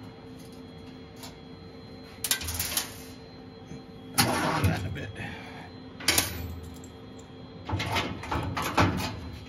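Several short bursts of metal clattering and scraping as the laser cutter's sheet-metal front panel is unscrewed and worked loose. Under them is a steady hum from the running machine and its water chiller.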